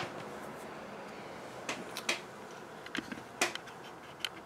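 A few light, scattered clicks and taps from plastic sifter end caps being handled and set down on paper, over faint room noise.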